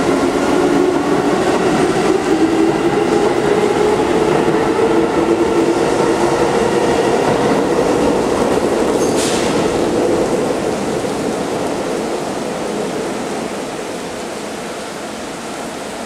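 Keikyu New 1000 series electric train standing at the platform, its equipment giving a steady hum with several held tones. A short hiss comes about nine seconds in, and the sound grows quieter over the last few seconds.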